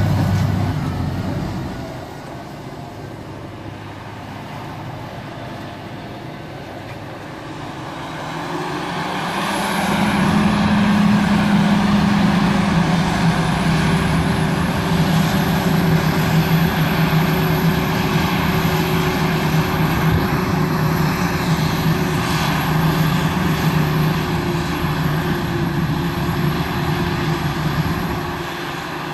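Claas Jaguar self-propelled forage harvester with an MCC Shredlage processor, its engine and chopping drum running steadily while harvesting standing maize, with a tractor pulling a silage trailer alongside. The steady drone with a low hum grows louder about nine seconds in.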